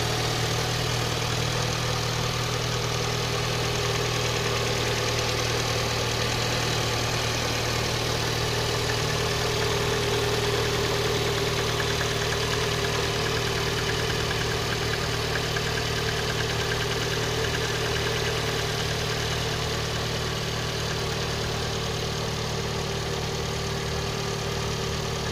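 VAZ-11194 1.4-litre 16-valve engine idling steadily from a cold start, with a knock heard in its running while it is still cold.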